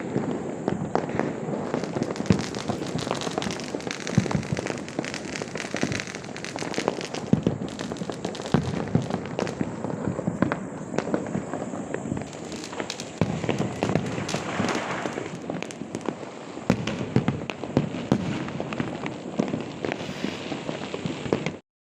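Many fireworks and firecrackers going off at once: a dense, continuous run of overlapping bangs, pops and crackling, cutting off abruptly near the end.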